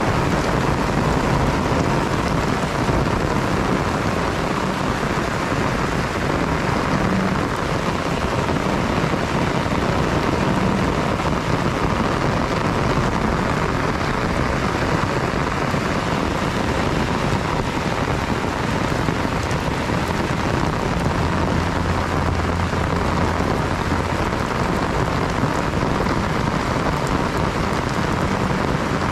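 Heavy rain falling steadily, a dense even hiss of drops on surfaces, with a faint steady buzz from a faulty camera stabilizer.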